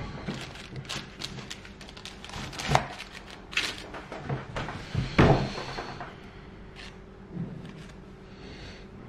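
Handling knocks and clicks of a hinged metal pâté en croûte mold being moved on a silicone baking mat, with lighter taps from hands working the pastry. The loudest knocks come about three and five seconds in, and it grows quieter near the end.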